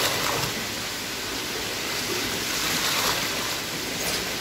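Water pouring and splashing into a tub of water that holds a plastic crate of lobsters, as it is scooped up and poured over them again, with a few stronger splashes.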